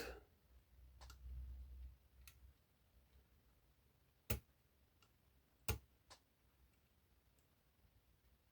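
Sparse faint clicks of a hook pick and tensioner working inside an eight-lever lock, with two sharper clicks a little past the middle and a low rustle of handling about a second in.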